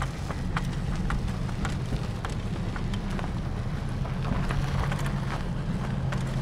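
Isuzu D-Max diesel ute driving, heard from inside the cab: a steady low engine and road drone with scattered sharp clicks and ticks.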